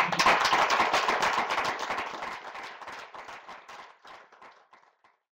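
Audience applauding, fading away over about five seconds.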